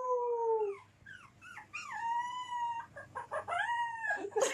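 Dog whining and howling in a string of long, high, drawn-out calls that rise and then fall, with short quick yelps between them. A loud brief rough sound comes near the end.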